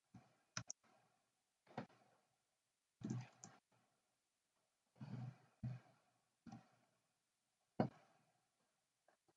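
Faint computer keyboard keystrokes: about ten separate clicks, irregularly spaced, with silence between them. Among them are a couple of softer, longer sounds.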